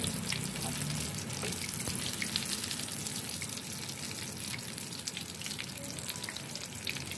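Oil sizzling steadily in a grill pan as mutton-mince chapli kababs shallow-fry, with many small crackles and pops.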